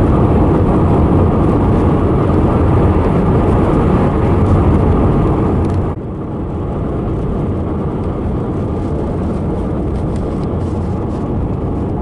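A car driving at road speed: a steady rumble of engine and tyres that drops abruptly and turns duller about six seconds in.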